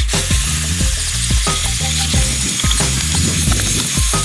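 Cordless Dyson stick vacuum running with a steady high hiss, over background music with plucked low notes.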